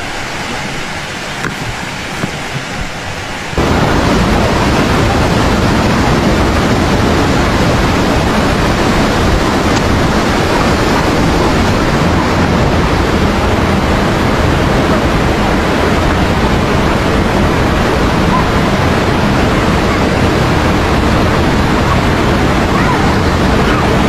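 Steady loud rushing of a fast, muddy river in spate, a constant roar with no pauses that grows louder about three and a half seconds in.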